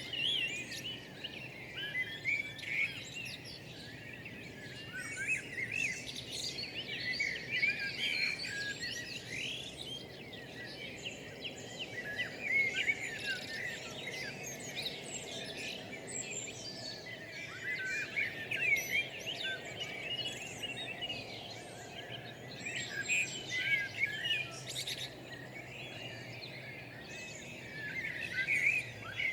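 Several songbirds singing at once, a dense chorus of chirps, twitters and trills, over a faint steady background hum.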